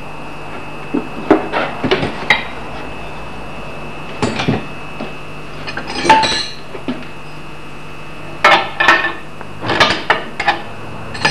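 Irregular metallic clinks and knocks from steel tools and the parts of an axe-filing jig being handled and adjusted, coming in small clusters, with one knock ringing briefly about six seconds in.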